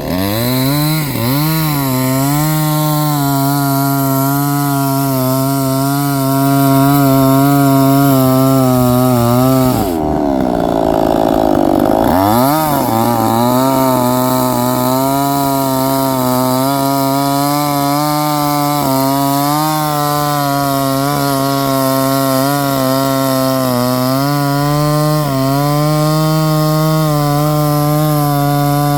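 Chainsaw running steadily while cutting wood. Its engine pitch dips and wavers near the start, sags for about two seconds around ten seconds in, then climbs back and holds steady.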